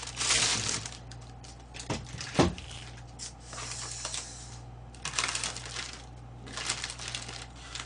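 Plastic takeout packaging rustling and crinkling as it is handled and opened, in several spurts, with two sharp knocks about two seconds in.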